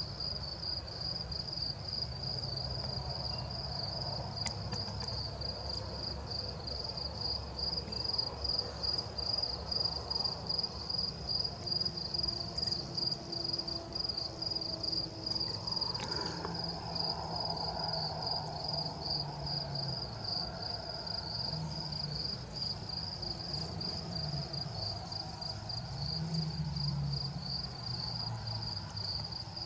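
Night insect song: a steady, evenly pulsed high trill that keeps going without a break, over a low background rumble. A single sharp click comes about halfway through.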